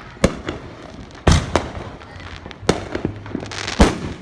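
Fireworks going off: a string of sharp bangs at uneven intervals, the loudest about a third of the way in and another near the end.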